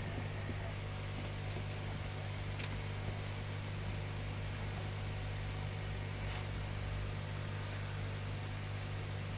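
Steady low electrical hum of bench equipment, with a faint tick about three seconds in.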